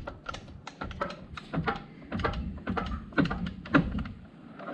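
Irregular light clicks and knocks of machined steel parts being handled: a turned steel arbor shifted by hand in the bore of a steel tailstock die holder, with a few louder knocks in the middle.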